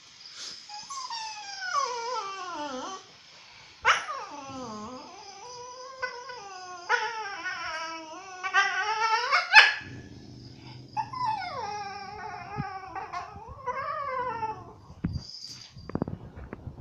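Dog complaining in a string of long, whining, howl-like calls that mostly slide down in pitch, about half a dozen in a row. A low growl sits under the calls in the second half.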